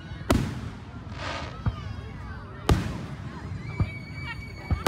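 Aerial firework shells bursting overhead: two loud booms, the first just after the start and the second near the middle, with smaller thumps in between and after, each boom trailing off in a rumble.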